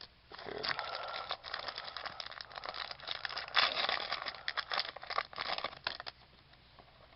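Trading card pack wrapper crinkling and rustling as it is handled, loudest about halfway through and dying down about six seconds in.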